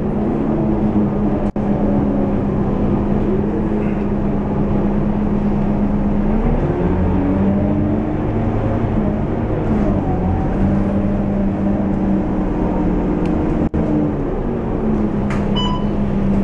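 Scania K230UB city bus's five-cylinder diesel engine running under way, heard from inside the passenger cabin as a steady drone whose pitch drops and climbs again about six to seven seconds in. A short electronic beep sounds near the end.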